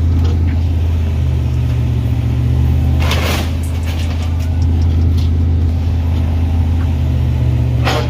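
Steady low drone of a running vehicle engine, with a brief rushing hiss about three seconds in.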